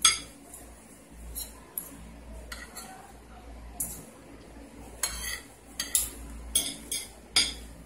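Metal spoon and fork clinking and scraping against a plate during a meal of rice: about a dozen sharp, irregular clinks, the loudest right at the start and another near the end.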